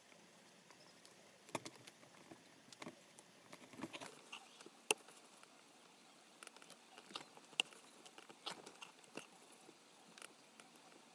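Faint, irregular clicks and taps, one or two a second, as a small leather piece is handled and pressed under a pointed tool held in a press stand. No motor sound.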